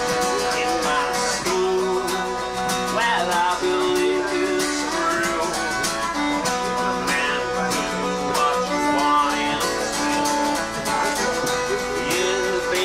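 Background music led by plucked acoustic guitar.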